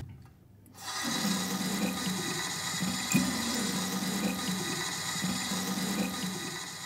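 Water from a bathroom sink's single-lever mixer tap running steadily into the basin, starting a little under a second in when the tap is turned on.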